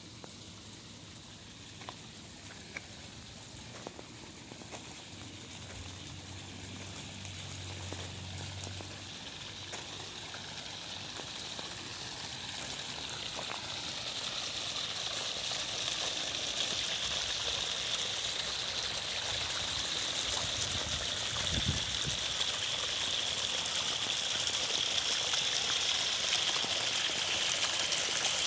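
Water splashing and trickling down the rock cascade of a pondless waterfall, a steady rushing that grows louder throughout.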